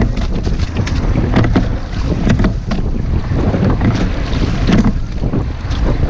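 Rowing shell under way: heavy wind noise on the microphone, with repeated knocks of oars in their oarlocks and splashes of the blades in the water.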